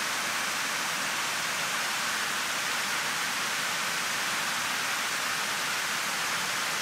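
Steady rushing of a stepped waterfall spilling over rock ledges into a river pool.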